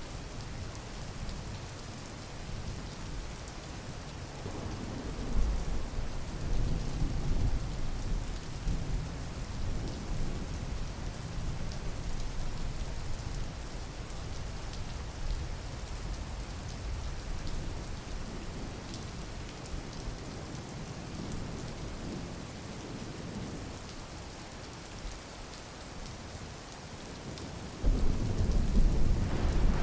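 Steady rain, with low rolling rumbles of thunder swelling about four seconds in and a louder rumble breaking in suddenly near the end.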